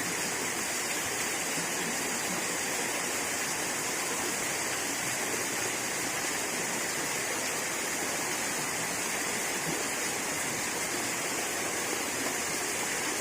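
Steady rush of flowing water, even and unchanging throughout.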